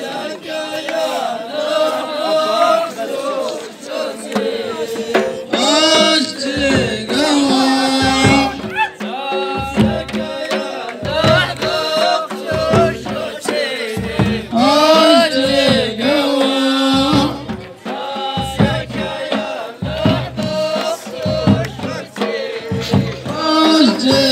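Ahwach: a group singing a chant-like Amazigh folk song in chorus, with frame drums beating a steady rhythm that comes in about six seconds in.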